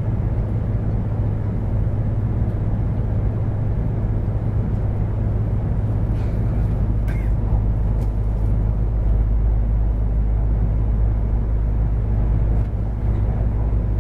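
Steady low rumble of a Taiwan High Speed Rail 700T train running at speed, heard from inside the passenger cabin, with a few faint clicks about halfway through.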